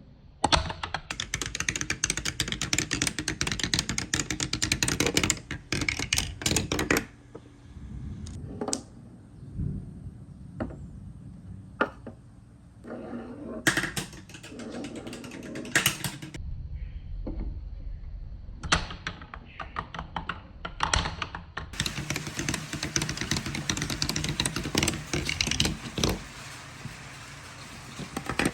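Marbles and balls rolling and clacking along wooden ramps and a grooved wooden track. There are three long runs of rapid clicks, with a low rolling rumble and scattered single knocks between them.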